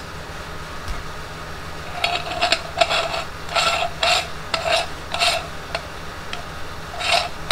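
Metal parts of a meat grinder attachment scraping together as the threaded retaining ring is twisted onto the grinder head over the blade and plate, in a run of about eight short scraping strokes starting about two seconds in, with one more near the end.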